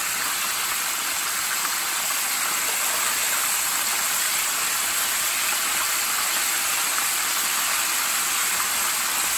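Chicken pieces deep-frying in a pot of hot oil: a steady, dense sizzle. Some of the oil has just been ladled out, and the chicken is frying better for it.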